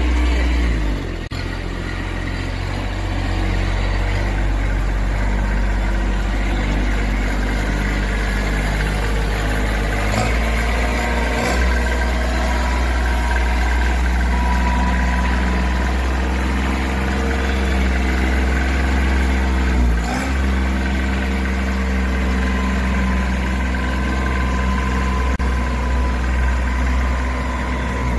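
Kubota B2441 mini tractor's three-cylinder diesel engine running steadily as the tractor is driven, an even low drone.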